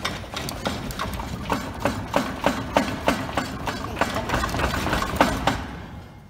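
Mechanical clicking in a quick, fairly regular run of about three clicks a second over a low rumble, stopping about five and a half seconds in.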